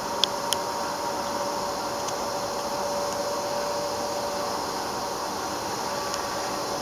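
Freight cars of a slow-moving train rolling past: a steady rolling noise with a faint steady hum, and two sharp clicks within the first second.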